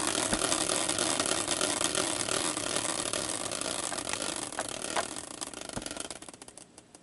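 Prize wheel spinning, its pointer clicking rapidly against the pegs. The clicks slow and thin out, dying away near the end as the wheel comes to rest.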